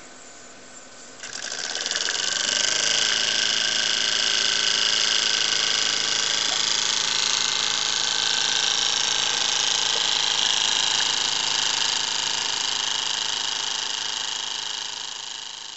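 Single-cylinder oscillating model steam engine (Midwest Heritage #987) starting about a second in and running fast, a rapid mechanical chuffing with a steady hiss of exhaust steam. It grows fainter near the end.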